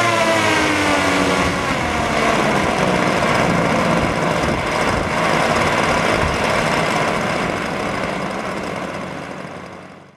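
Aircraft-like sound effect: a whine falling in pitch at the start blends into a steady rushing roar, which fades away over the last couple of seconds.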